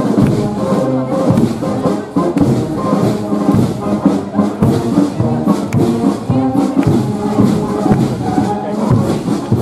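Brass band music playing, with people talking.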